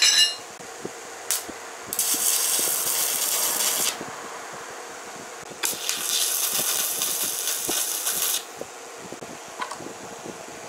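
Stick (arc) welder's electrode arc crackling and hissing in two runs, about two and about three seconds long, welding a steel socket. A short metallic clink rings out at the very start.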